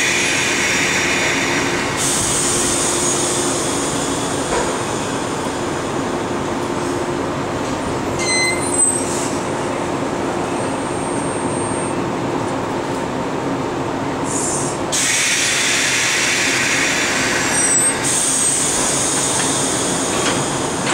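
Idling 185-series electric trains humming steadily, with stretches of hissing air at the start and from about fifteen seconds in. There is a short clunk and clatter about nine seconds in as the two trainsets' couplers meet and join.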